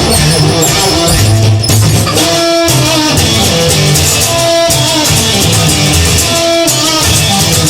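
Instrumental blues-rock music led by guitar, over a drum kit.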